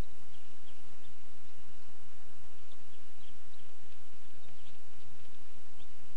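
Faint short high chirps scattered every second or so, from bald eaglets in the nest during a feeding, over a steady outdoor background noise.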